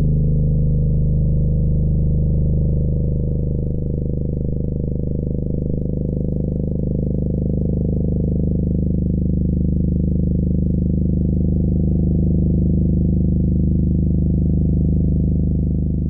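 Canned air horn sounding underwater: a low, muffled, steady blare with no high end, held unbroken throughout.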